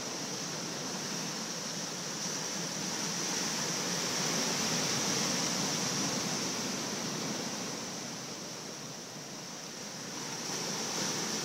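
Small surf breaking and washing up a sandy beach: a steady rushing that swells in the middle, eases about nine seconds in, and builds again near the end.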